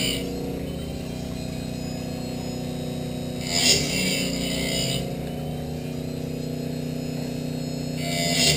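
Wood-Mizer band-blade sharpener running: its motor gives a steady hum, and twice, about three and a half seconds in and again near the end, the grinding wheel hisses for a second or so as it grinds the band-saw blade teeth.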